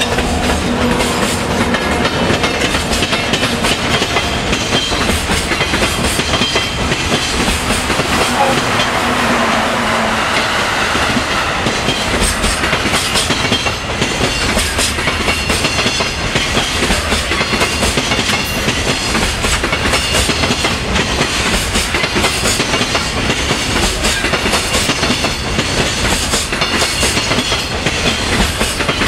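Freight train's container wagons rolling past, wheels clattering steadily over the rail joints. A low hum runs under it for about the first ten seconds.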